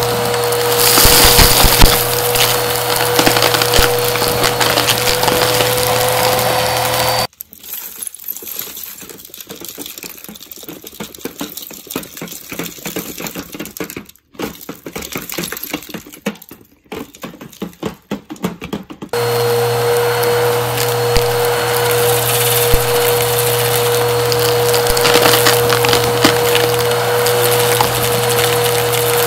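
Bissell vacuum cleaner running with its motor whine close on the mic, crackling as it sucks up a thick, chunky debris mix. The motor sound cuts out suddenly about seven seconds in, leaving quieter scattered clicks and rattles, and comes back about nineteen seconds in.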